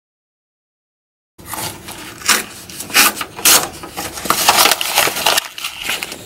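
A torn-out sketchbook page being crumpled in the hand: a dense, loud paper crackle that starts about a second and a half in and cuts off abruptly at the end.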